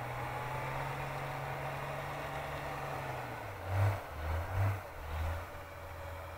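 Car engine running steadily. About three seconds in its pitch drops and it surges four times in quick succession, as it works against a tow line to get a car out of deep snow.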